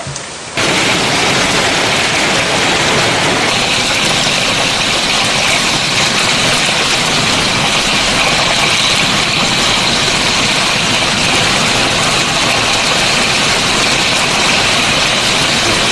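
Heavy hail pelting down onto pavement and grass: a loud, dense, steady rush of countless stones striking the ground, starting suddenly about half a second in.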